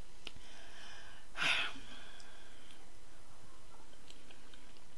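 A person's breathy exhale, like a sigh, about a second and a half in, with a few faint clicks near the end.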